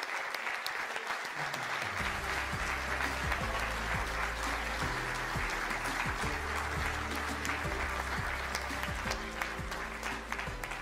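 Audience applauding steadily. Background music with deep bass notes comes in under the applause about a second and a half in.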